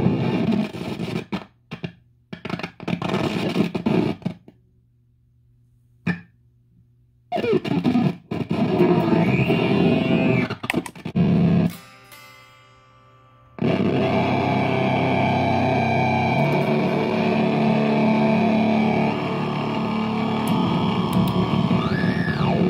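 Electric guitar played through a Magpie Pedals Fruits effects pedal, distorted and cutting in and out in abrupt bursts with gaps of silence between them. From a little past halfway it settles into a steady, sustained distorted drone. Near the end a turn of one of the pedal's knobs sweeps a tone up and back down.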